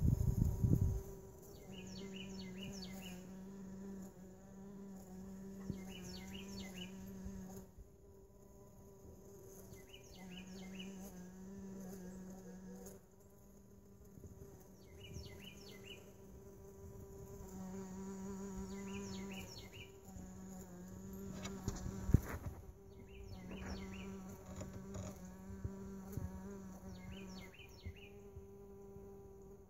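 Mason bees buzzing at their nest holes in a plastic lawn mower bagger. The buzz comes and goes in stretches of a few seconds.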